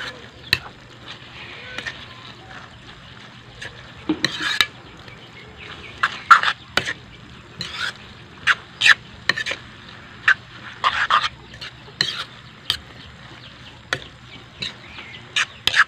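A metal spatula scrapes and clatters against a wok in irregular strokes as bihon rice noodles are tossed and mixed with a sardine sauce.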